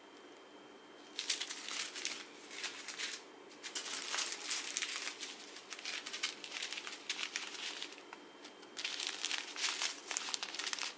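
Small zip-lock plastic bags of square resin diamond-painting drills crinkling as they are handled, with the drills shifting inside. It comes in three spells, starting about a second in, the longest in the middle.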